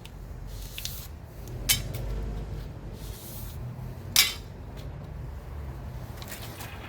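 Two sharp metallic clinks about two and a half seconds apart, with fainter scraping between them, as lengths of aluminium air-conditioner refrigerant pipe are handled.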